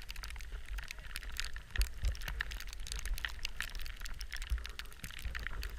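Skis running over snow, with irregular scratchy clicks and ticks over a steady low wind rumble on the microphone. There are a few heavier thumps, about two seconds in and again past the middle.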